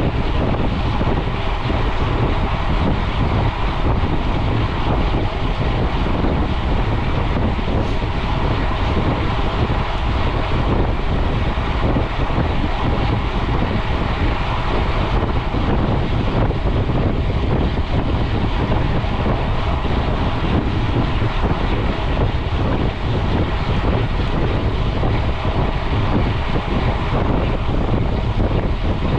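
Steady wind rushing over a GoPro's microphone on a bicycle ridden at speed, a loud, even roar that never lets up.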